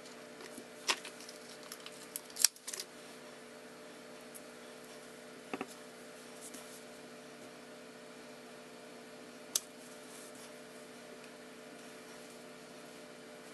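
A few sharp clicks and taps as a clear acrylic stamp block and card stock are handled on a craft mat, the loudest about two and a half seconds in, over a steady low electrical hum.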